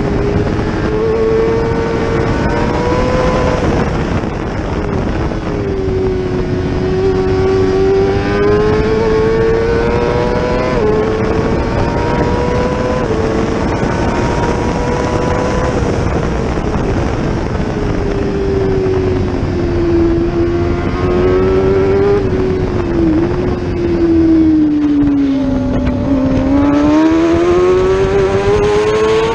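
600cc racing motorcycle engine at high revs on track, its pitch climbing in steps with short drops at the upshifts. Late on the pitch falls for a few seconds as the bike slows for a corner, then climbs again near the end, all over a steady wind rush.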